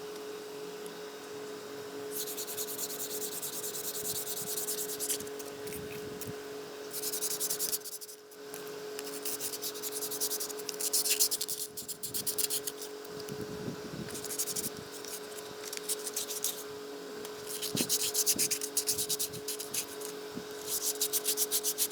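Hand sanding in the cleaver restoration: an abrasive rubbed back and forth in quick, even strokes, in about six bouts with short pauses between them.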